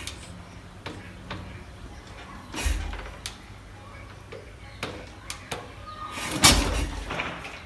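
Royal Enfield Bullet Electra single-cylinder engine being kicked over without firing: a heavy thud of the kickstart stroke about two and a half seconds in and a louder one near the end, with light mechanical clicks between. The engine does not catch.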